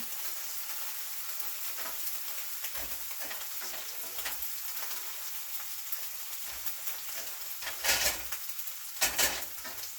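Pork stir fry sizzling steadily in a hot pan, with scattered clicks of stirring. Two louder stirring strokes come near the end, about a second apart.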